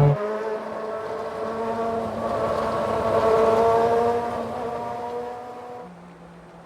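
An engine running at a steady pitch, growing louder through the middle and then fading away, with a slight drop in pitch near the end.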